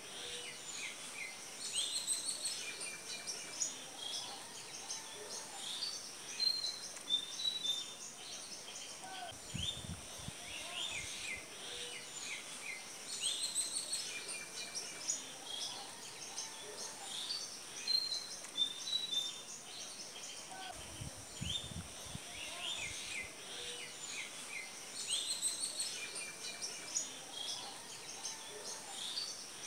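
Many small birds chirping and twittering in quick, overlapping short calls, with a couple of faint low thuds. The same stretch of birdsong seems to recur about every twelve seconds, like a looped recording.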